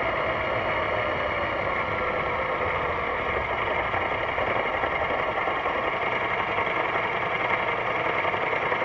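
BMW C650GT maxi-scooter's parallel-twin engine running steadily, its pitch sinking slightly over the first few seconds.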